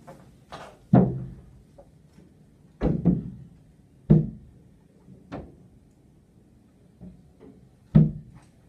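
Heavy thuds on a large window pane as a rope-access window cleaner's boots and body knock against the glass, each with a short, low booming ring. There are about five loud thuds, the loudest about a second in and near the end, with a few softer knocks between.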